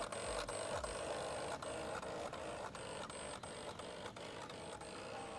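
Electric motor of a homemade remote-control bait boat running and turning its propeller: a steady mechanical buzz with a thin high whine and a run of light ticks about three a second, growing a little fainter as the boat pulls away.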